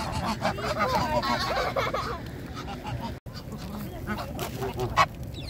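A crowd of greylag and Egyptian geese honking, many short calls overlapping, thinning out after about two seconds. A single sharp tap near the end.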